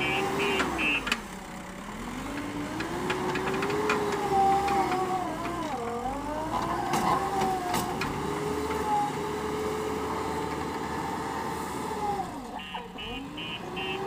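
JCB backhoe loader's diesel engine running hard while it works a sand pile, its pitch sagging and recovering three times. Its reversing alarm beeps rapidly at first, stops about a second in, and starts again near the end.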